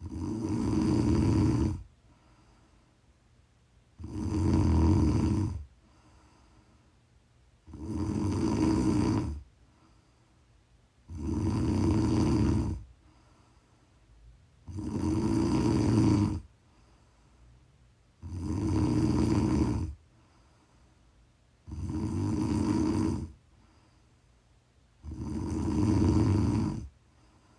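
A woman snoring in a slow, even rhythm: one loud snore of about two seconds roughly every three and a half seconds, eight in all, with quiet breaths between.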